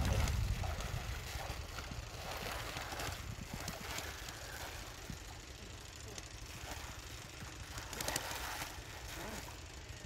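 Wind rumbling on the microphone, strongest at the start and easing off, with water sloshing and mud squelching as hands dig through shallow muddy water.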